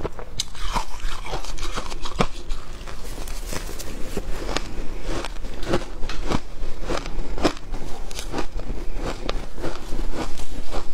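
Shaved ice crunching as it is eaten with a spoon: a dense, irregular run of sharp, crisp crunches and crackles, several a second.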